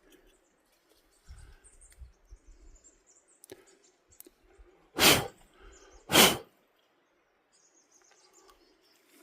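Quiet forest ambience with faint bird chirps, broken by two loud, short bursts of noise a little over a second apart near the middle.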